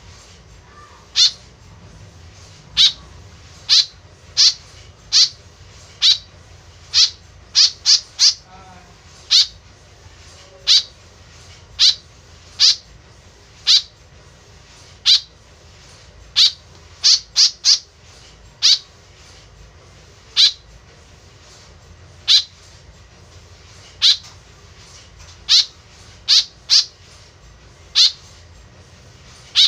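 White-breasted woodswallow giving short, sharp, high calls, singly about once a second and now and then in quick runs of two or three.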